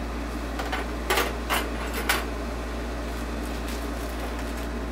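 Small steel hot-air nozzles clinking as they are set down on top of a rework station: a few sharp clicks within the first couple of seconds, then fainter ticks, over a steady low hum.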